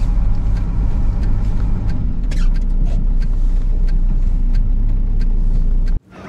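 Truck engine running steadily under load, heard from inside the cab while the truck is being towed out of deep snow, with scattered knocks and rattles from the cab. The sound cuts off abruptly near the end.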